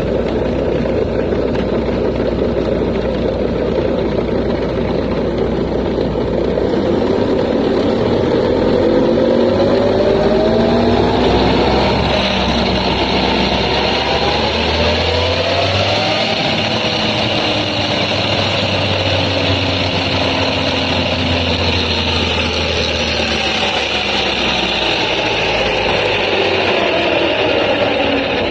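Hongyan Genlyon heavy truck running, its note rising as it speeds up through about the first half and falling as it slows in the second half. The noise comes from the wheel-end hub reduction, which still makes an abnormal noise after three replacements, a fault the mechanic cannot find.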